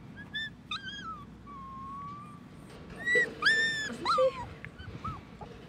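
Three-week-old Siberian Husky puppies whining and yelping: a string of short high cries, with one longer, lower whine about two seconds in and the loudest cries around three to four seconds in.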